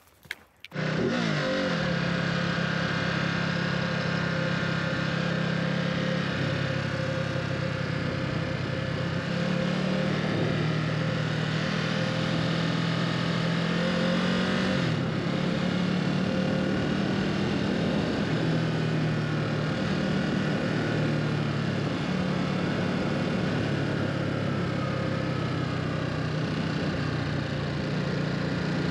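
Ducati Supersport's L-twin engine running under way, starting about a second in after a quiet stretch, its note rising and falling slightly with throttle changes over a steady hiss of wind and road noise.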